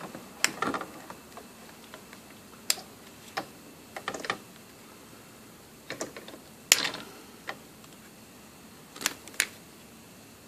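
Plastic retaining tabs on a Nissan Frontier fuel pump module clicking and snapping as they are pried with a hand tool: about a dozen sharp, irregular clicks, the loudest about two-thirds of the way through.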